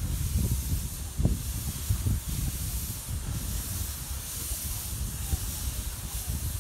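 Narrow-gauge saddle-tank steam locomotive Marchlyn drifting in with a goods train, steam hissing steadily from its open cylinder drain cocks over a low rumble.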